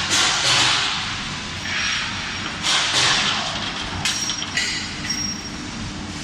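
Mesh belt heat-treatment furnace line running: a steady machine hum with irregular noisy bursts about every second.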